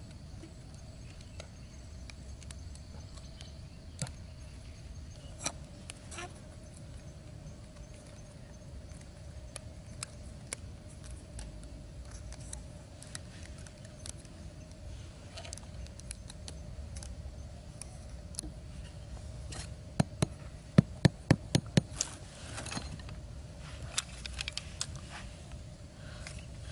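Thin bamboo sticks clicking and clattering against each other as they are handled and fitted into a stick trap, with scattered single clicks and a quick run of sharp clicks about twenty seconds in.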